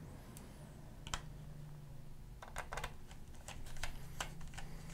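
A tiny screw being set and driven into a laptop's Wi-Fi card with a fine-tip Phillips screwdriver: one sharp click about a second in, then a run of quick, irregular small clicks from about halfway through.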